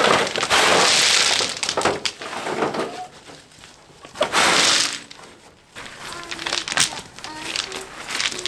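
River rocks being dumped and tossed, clattering and grinding against each other. There are two long rushing clatters of about a second each, at the start and about four seconds in, then a run of short knocks of single stones landing.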